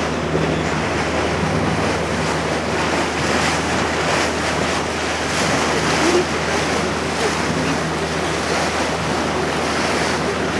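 Small motorboat under way: the engine hums steadily beneath the rush of water along the hull, with wind buffeting the microphone.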